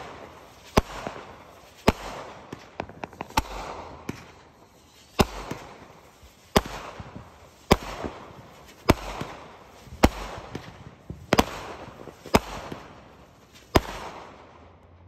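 Fireworks going off in a steady series of sharp bangs, about one a second, each trailing off in an echoing rumble. A quick run of smaller crackles comes about three seconds in.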